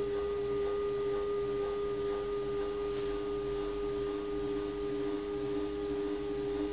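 Stepper motor of a home-built CNC mill driving the Proxxon KT 150 cross table along one axis at a steady feed: a steady whine of several held tones.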